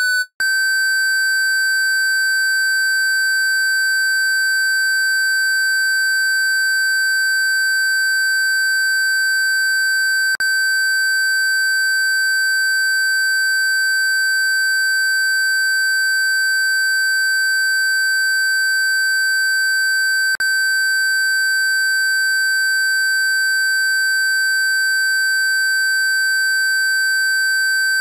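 A steady, pure electronic sine tone at 1550 hertz. It takes over from a 1500 hertz tone after a brief break a fraction of a second in. Two faint clicks come about ten and twenty seconds in.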